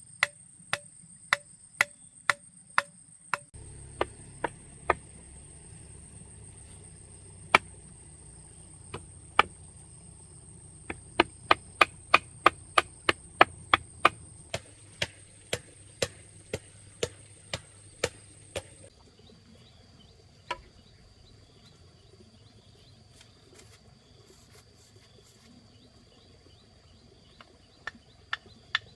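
Repeated sharp blows on wood or bamboo, as of chopping or hammering, mostly about two a second and quicker for a few seconds in the middle. They stop for several seconds and start again near the end. Insects shrill steadily throughout.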